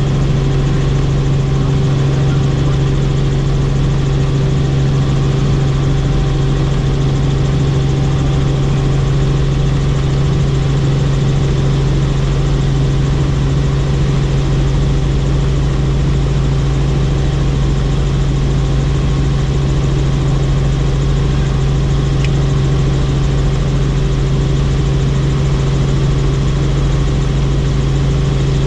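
Helicopter in flight: the steady, loud drone of its turbine engine and rotor, a strong low hum with steady higher tones above it, unchanging throughout.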